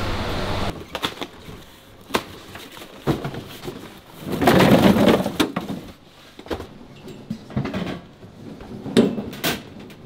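Handling noise of kit and objects being moved about: scattered clicks and knocks, a longer, louder clatter about halfway through, and two sharp knocks near the end. A steady rush cuts off under a second in.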